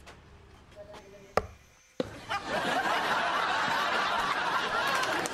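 A single sharp knock, then, about two seconds in, laughter breaks out suddenly and carries on.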